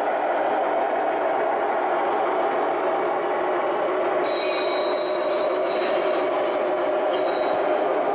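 O gauge model Trainmaster diesel locomotive running steadily with its cars rolling behind it. From about four seconds in, a high thin squeal comes and goes for a few seconds above the running sound.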